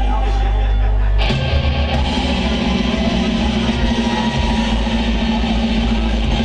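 Live heavy metal band: a held low electric-guitar chord rings, then a little over a second in the drums and guitars come in together with a heavy riff.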